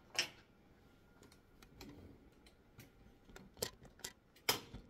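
A few sharp clicks and light taps from tools and wiring being handled on a tanning bed's metal panel. The loudest clicks come just after the start and near the end.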